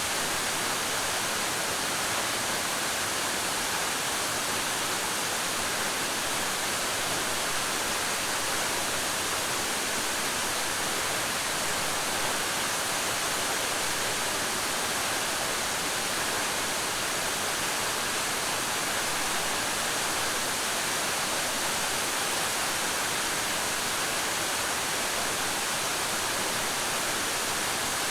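Waterfall pouring steadily, a constant rushing hiss of falling water with no breaks or changes.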